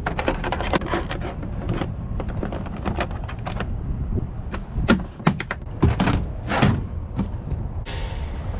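A series of clicks, knocks and thunks, with a few louder thumps about five to seven seconds in, over a steady low rumble.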